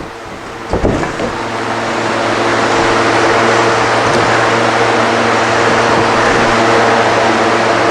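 Steady machine hum with a rushing air noise, building up over the first few seconds, with a single knock about a second in.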